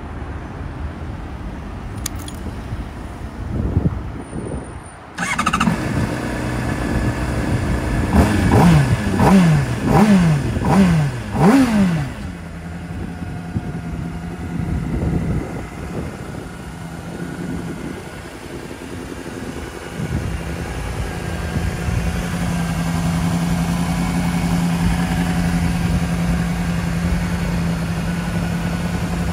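2007 Honda CBR600RR inline-four with an Arrow aftermarket exhaust starting up about five seconds in, blipped through several quick revs, then settling into a steady idle.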